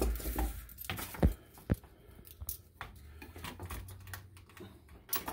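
Metal swivel snap clips on a leather axe-sheath strap being handled and clipped on: a few sharp small metal clicks and light jingling, with soft leather handling between them and a knock right at the start.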